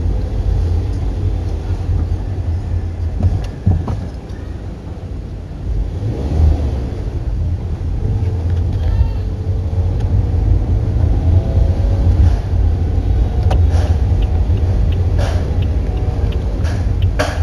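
Car driving, heard inside the cabin: a steady low rumble of engine and road noise.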